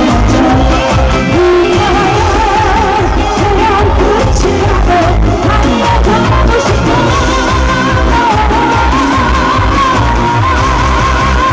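A woman singing a Korean song live into a handheld microphone over a loud backing track with a steady beat; her held notes waver with vibrato.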